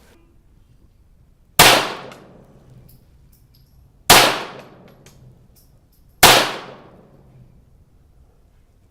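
Three .22 rimfire pistol shots from a CZ-75B Kadet, about two seconds apart, each a sharp crack with a short decaying ring, paced like a timed-fire string.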